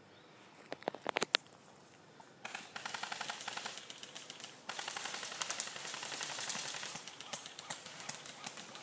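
Airsoft guns firing: a few single sharp shots about a second in, then a rapid automatic burst of evenly spaced clicks, about a dozen a second, starting around two and a half seconds in. Denser, louder noise with scattered pops follows.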